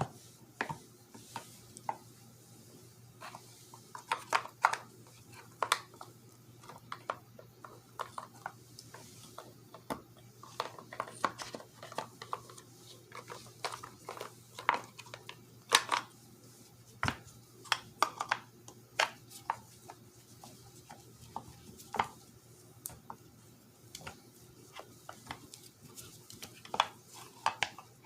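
Irregular clicks and clinks of small metal and plastic parts of a car's manual shifter assembly being handled and fitted together, over a steady low hum.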